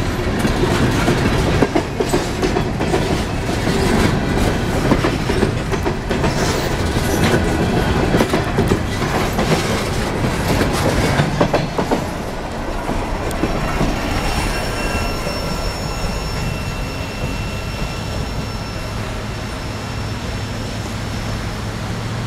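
Loaded coal hopper cars of a freight train rolling past close by: a steady rail rumble with rapid clicks and clacks as the wheels cross rail joints. About halfway through it turns quieter, with thin high wheel squeal as the train rolls away, and a low steady hum comes in near the end.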